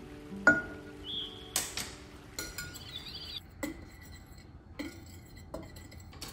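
A metal measuring spoon clinks once sharply against a glass baking dish. Then a wire whisk taps and scrapes against the glass again and again as dry flour, chilli powder and salt are mixed.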